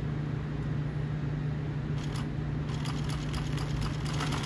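New-Tech GC-9920D direct-drive double-needle post bed industrial sewing machine, humming steadily. From a little past halfway it starts stitching at speed through thick layered fabric, with a rapid, even ticking.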